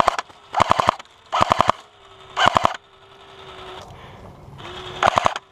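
Airsoft guns firing four short, rapid full-auto bursts in quick succession, each a fast string of sharp cracks.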